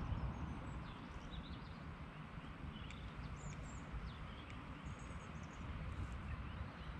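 Outdoor ambience: a steady low rumble of wind on the microphone, with faint, scattered high bird chirps.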